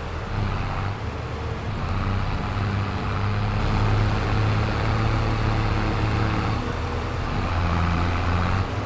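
Diesel engine of a harvest machine (combine or tractor) running steadily at working speed, with a constant low hum and mechanical noise. It gets a little louder around the middle.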